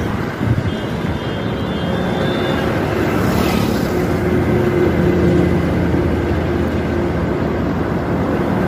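Highway traffic: motor vehicles' engines and tyres passing by, the noise growing a little louder around the middle.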